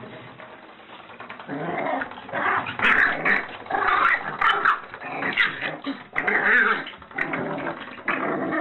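A puppy growling in repeated bursts, starting about a second and a half in, with short yaps and whimpers among the growls.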